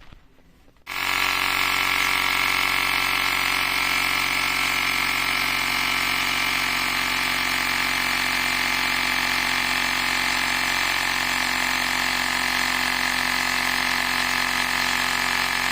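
Electric air compressor switched on about a second in and running steadily with a motor drone, pumping air through the car-type valve into a gas boiler's expansion vessel to bring its pressure up to 1.5 bars.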